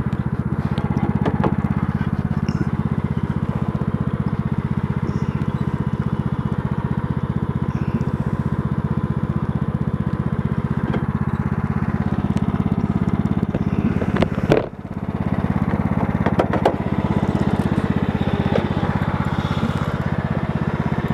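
Craftsman LT4000 riding mower's engine running steadily at a constant speed. A single sharp knock comes about two-thirds of the way through, followed by a brief dip in the engine sound and a few lighter clicks.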